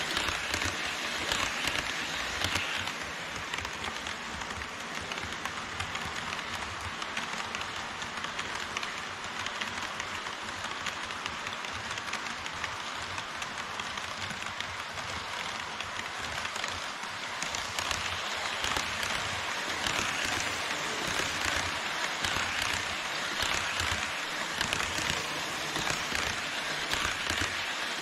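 HO-scale model trains running on KATO Unitrack: the wheels of an E5 series Shinkansen set and a freight train of tank and container wagons make a steady fine clatter of ticks over the track. It is louder at the start and again over roughly the last ten seconds.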